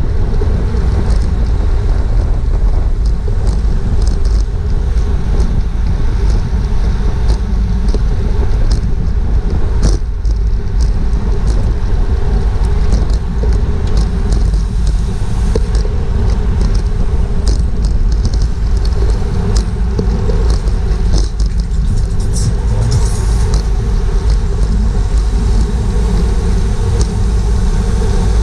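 Wind rushing over a GoPro's microphone on a bicycle at criterium race speed: a loud, steady low rumble with tyre and road noise, and many short sharp clicks and rattles.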